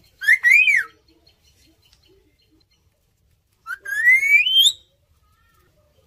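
Indian ringneck parakeets whistling: a short call that rises and falls just after the start, then a longer whistle gliding upward about four seconds in.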